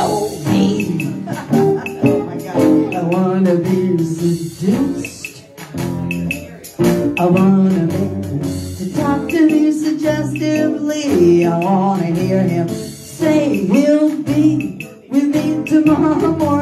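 Live band music: acoustic guitar strummed under a singer's vocal line.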